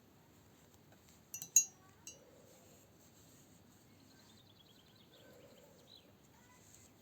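Knitting needles clinking together: a quick run of three ringing clinks about a second and a half in, then one more just after. A faint bird trill of short notes falling in pitch is heard around the middle.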